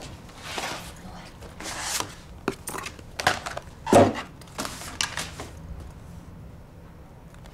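Sheets of paper being handled and shuffled on a desk in a string of short rustles, with one louder knock about four seconds in; the handling stops about five and a half seconds in.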